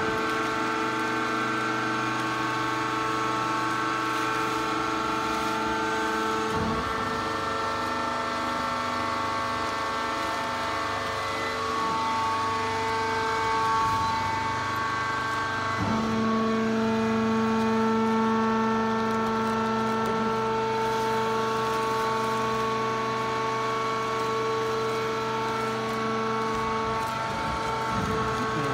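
Wood-sawdust pallet hot press machine running with a steady hum of several tones. The pitch pattern shifts suddenly about seven seconds in and again about sixteen seconds in.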